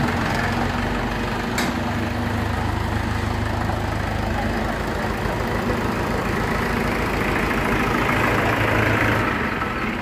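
Diesel farm tractor engine running at low speed as the tractor creeps forward, with one sharp click about a second and a half in. The engine's low drone stops near the end.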